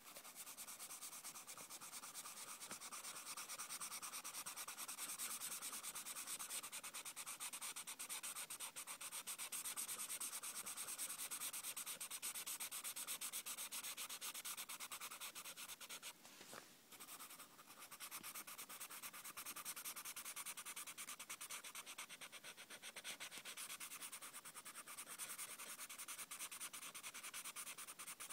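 Blue marker scribbling quickly back and forth on lined notebook paper, colouring in a letter, with a short pause about two-thirds of the way through.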